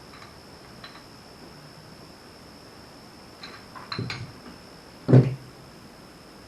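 Metal parts of a grease gun and its coupler being handled: a few light clicks, then a quick run of clinks, followed about five seconds in by one heavier thud, the loudest sound.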